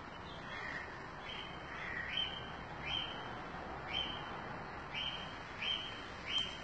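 A bird calling repeatedly: short, high chirps about once a second over steady outdoor hiss.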